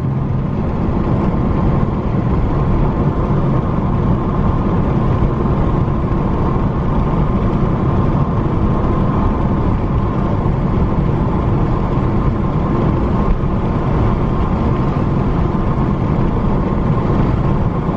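Steady road and engine noise of a car driving at speed, heard from inside the moving car.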